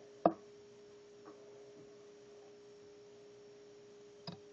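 A steady faint hum, one even tone, under the quiet handling of fly-tying work. There is a sharp click about a quarter second in, a faint tick a second later, and a small snip near the end as fine scissors trim the tying thread at the vise.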